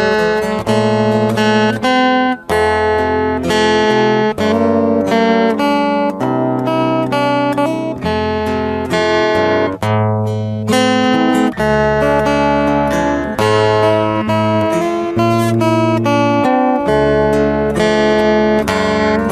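Background music: a strummed and plucked acoustic guitar with a steady bass line.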